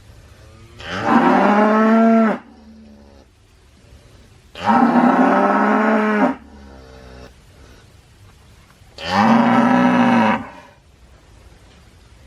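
Cow mooing three times, each call about a second and a half long, rising in pitch at the start and dropping away at the end, with fainter lowing in between the loud calls.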